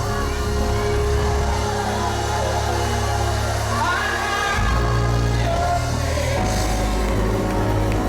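Live gospel worship music: a band holding sustained chords over a steady bass, with a voice singing and sliding up in pitch about four seconds in.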